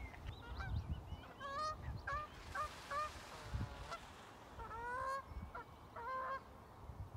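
Geese honking: two runs of short, repeated calls, the first about a second in and the second about five seconds in.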